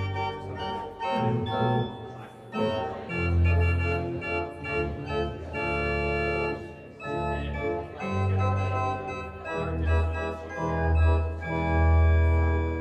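Organ playing slow, sustained chords over held bass notes that change every second or two.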